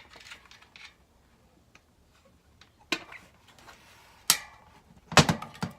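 Handling noise from a BMX wheel as an inner tube is pushed into the tire: a few scattered clicks and knocks, one with a short ring, then a louder clatter near the end.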